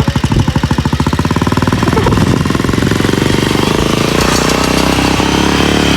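Motorcycle engine of a homemade farm vehicle running with a rapid, even knocking beat, its revs picking up about two seconds in into a smoother, steadier sound.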